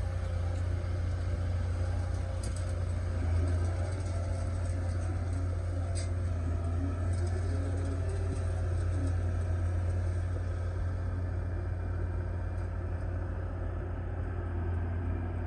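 Excavator engine running steadily with a constant low hum, and a couple of faint clicks.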